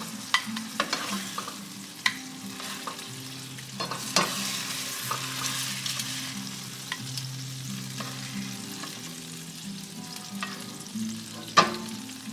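Thin chicken breast slices sizzling in olive oil and butter in a frying pan, with scattered clicks and scrapes of a utensil against the pan as they are lifted out, and one sharp knock near the end.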